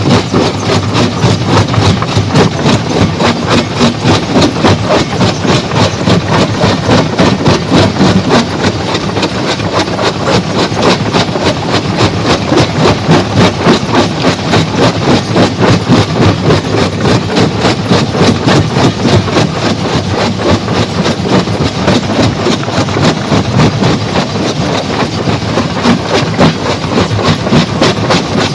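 Heavy stone-crushing machinery running with a steady, fast rhythmic clatter of about three knocks a second.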